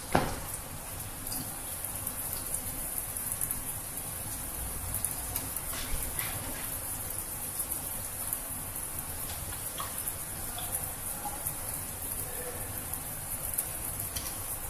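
A wet, soapy scrub sponge being rubbed over hands and forearm during a surgical hand scrub: a steady wet rubbing and lather sound with a few small crackles.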